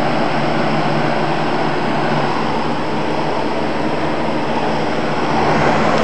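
Box fan running: a steady rush of air from the spinning blades over a low motor hum.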